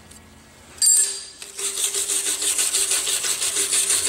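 Hand-held stainless steel wire brush scrubbing an aluminum plate in quick back-and-forth strokes, a dry scratching rasp that starts about a second in after a short pause. It is the wire brush clearing the oxide layer off the aluminum before TIG welding.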